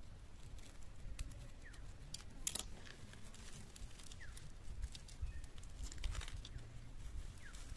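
Scissors snipping string and charred, dried pumpkin leaves crinkling and tearing as a leaf-wrapped fish parcel is peeled open by hand. There are scattered snaps and rustles, the sharpest about two and a half seconds in.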